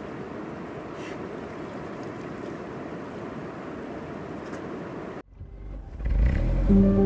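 Shallow river rushing steadily over rocks. It cuts off abruptly about five seconds in, and background music comes in near the end.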